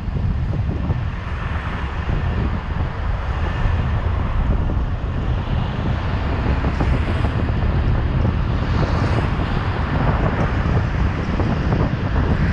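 Wind buffeting the microphone of a camera on a moving car, a steady low rumble over the hiss of road and traffic noise.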